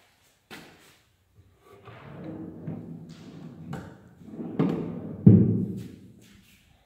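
Wooden cabinet drawer being slid open and pushed shut: a low rumbling slide, then two knocks, the second a heavy thud.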